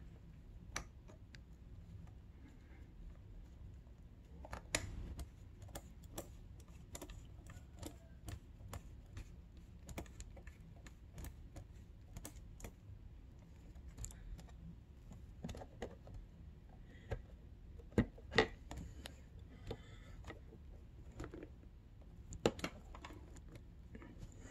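Scattered light clicks and small knocks of hands handling a dirt bike's fuel petcock and fuel line at the carburetor, with a few sharper knocks in the second half. A low steady hum sits underneath.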